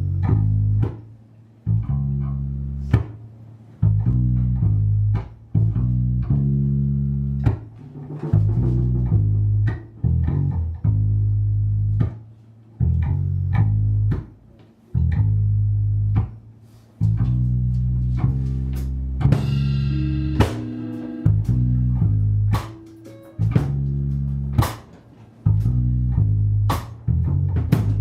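Music led by a deep bass line, with guitar and drum hits, playing in short stop-start phrases of one to two seconds each.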